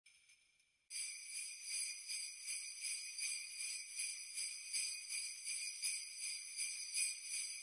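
Jingle bells shaken in a steady rhythm of about three shakes a second, starting about a second in.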